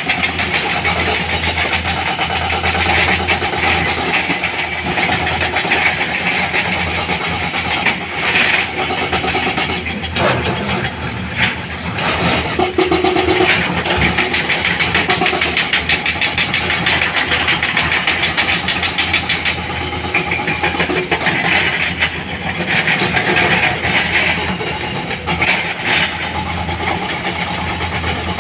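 Diesel engines of heavy earthmoving machinery running steadily, with a few sharp knocks now and then.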